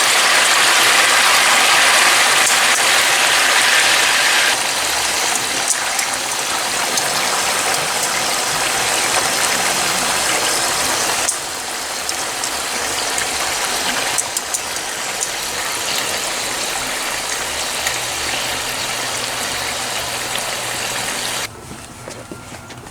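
Food sizzling and crackling in hot cooking oil in a pan, a dense steady hiss that drops in level at about four and a half seconds, again at about eleven seconds, and sharply near the end.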